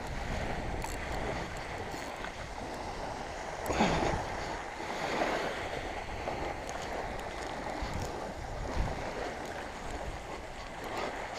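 Small waves washing on a sandy beach, with wind rumbling on the microphone. A short louder sound, falling in pitch, breaks in about four seconds in.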